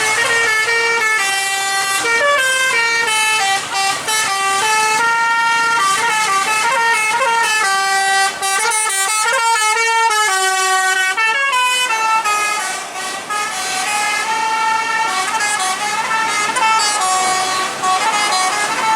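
Bus telolet horn, a set of electric air-horn trumpets, playing a melody as a string of bright held notes stepping up and down in pitch. About halfway through comes a quicker run of short notes.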